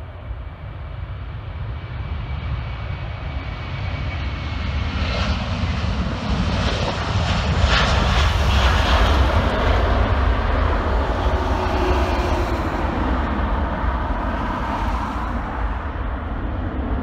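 Airbus A330-300 with two General Electric CF6-80E1 turbofans at takeoff power: steady jet noise that grows louder as the airliner rolls down the runway and lifts off close by, loudest about eight seconds in around rotation, then easing slightly as it climbs away.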